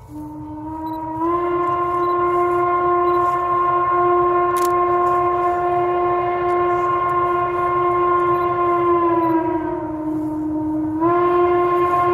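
Chime steam whistle of Western Maryland Scenic Railroad 1309, a 2-6-6-2 Mallet steam locomotive, sounding a long blast: the chord rises to full pitch about a second in and holds, sags lower as the whistle is eased near the end, then comes back up to full pitch for a second blast.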